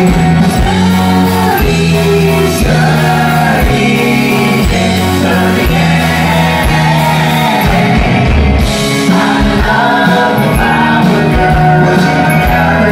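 Live pop-rock band playing, with several voices singing together over electric guitars, keyboard, bass and a steady drum beat.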